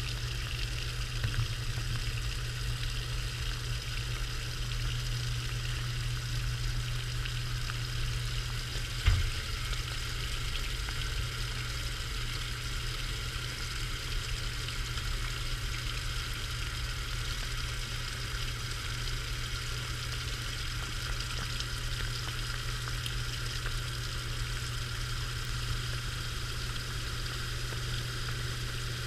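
A washing machine running, heard from inside a waterproof camera housing tumbling in the drum with the wash: steady hissing, sloshing water over a low steady hum, with a single knock about nine seconds in.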